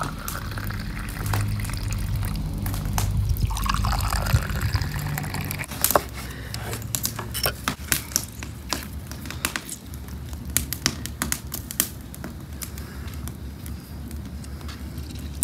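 A drink poured in a stream into cut-glass tumblers, the pitch of the pouring rising as each glass fills. From about six seconds in, scattered small clicks and taps take over.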